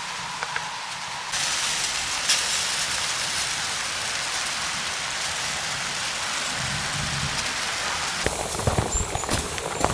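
Steady patter and hiss of falling precipitation on a surface, getting louder about a second in. Near the end, irregular knocks and crunches join it.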